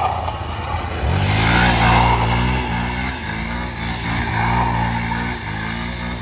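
Single-cylinder engine of a Hero XPulse 200 4V motorcycle revving. The revs jump sharply about a second in, then are held high with the pitch shifting several times.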